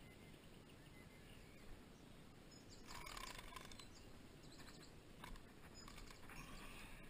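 Mostly near-silent air with two short bursts of fast ticking, about three seconds in and again near the end: a spinning reel working during the fight with a hooked catfish, its drag giving line.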